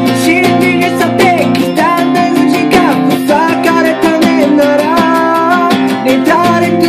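Acoustic guitar strummed in a steady rhythm while a man sings a melody in Korean.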